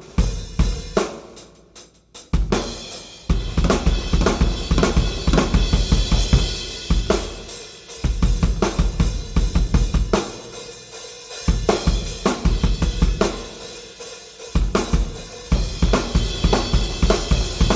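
A Yamaha 9000 Real Wood drum kit with Paiste 505 cymbals, played through a Yamaha EAD10 recording module: bass drum, Ludwig Supraphonic snare, hi-hats and cymbals. A few scattered hits open it, then it settles into a steady groove from about three seconds in. The bass drum drops out briefly a few times.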